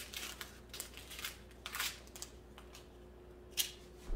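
Small plastic bags of resin diamond-painting drills crinkling and rustling as they are handled, in short irregular crackles, the sharpest about three and a half seconds in.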